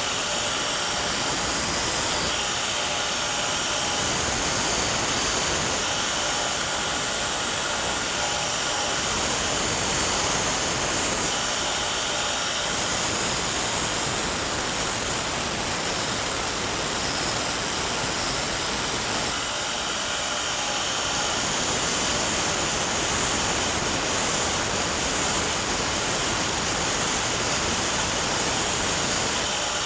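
Power grinder running steadily against the steel striking surface of a farrier's fuller, grinding off the chipped edges and shaping the face into a dome.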